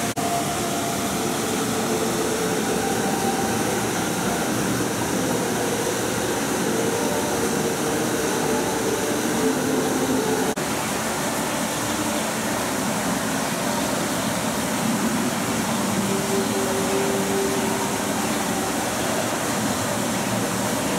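Steady rushing background noise of an aquarium hall's air-handling equipment, with faint tones drifting underneath and a short click about halfway through.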